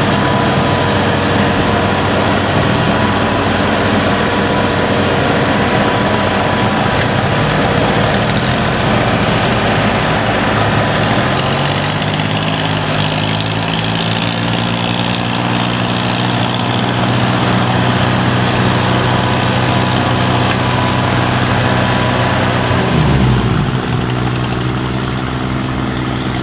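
Kubota DC70 combine harvester's diesel engine running loudly; its note rises about halfway through as the engine is revved up under load, holds steady, then drops suddenly near the end as the throttle comes off.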